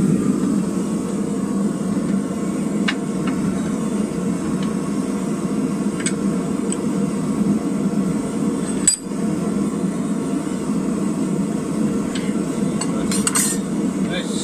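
Gas-fired forge burner running with a steady rushing noise. Over it come a few metal clinks as a red-hot bar is worked in a vice and a wrench is fitted to twist it, with one sharper clank about nine seconds in.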